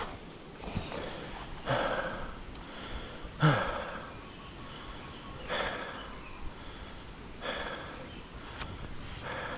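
Heavy breathing of a mountain biker riding hard, with a loud breath roughly every two seconds over a steady background of trail noise.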